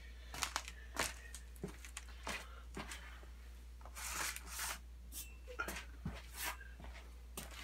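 Scattered light knocks and clicks of metal and packaging being handled and turned over, with a brief rustle or scrape about four seconds in.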